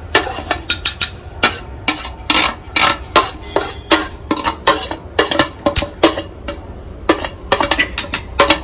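Long wooden pestle pounding and working chutney in a stone mortar: rapid, irregular sharp knocks and scrapes, several a second.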